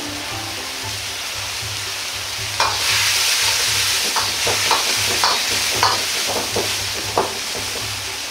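Metal ladle stirring a boiling chikuwa-and-bean-sprout sauce in a wok: a steady bubbling sizzle that grows louder about two and a half seconds in, with the ladle knocking against the wok several times.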